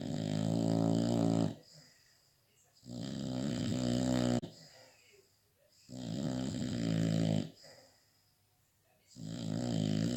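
An American Bully dog snoring in its sleep: four long snores, each about a second and a half, coming about every three seconds.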